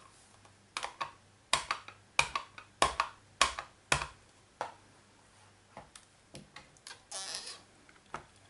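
An ink pad tapped repeatedly onto a rubber stamp to re-ink it: a run of about nine sharp taps roughly half a second apart, then a few lighter clicks and a brief rustle near the end.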